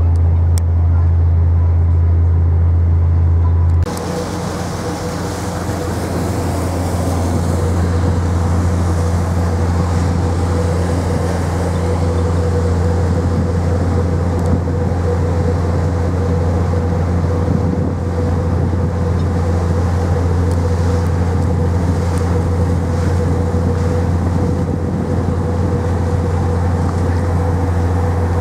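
Steady low drone of a car ferry's engines heard from the open deck, with rushing wind and water noise. About four seconds in, the sound changes suddenly and a steady higher hum and more rushing noise join the drone.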